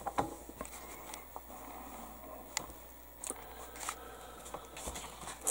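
Quiet handling of a paper instruction booklet: soft rustling with a few light ticks.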